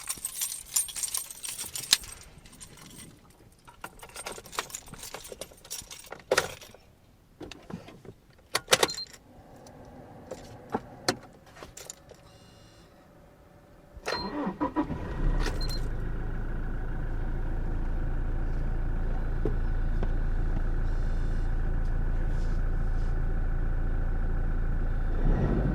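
Car keys jangling, then several sharp clicks, then a Toyota car's starter cranks briefly about fourteen seconds in and the engine catches and settles into a steady idle.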